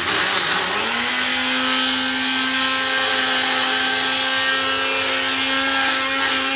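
Small electric blender switched on: the motor spins up with a rising whine over about the first second, then runs steadily, grinding dry eggshells into powder.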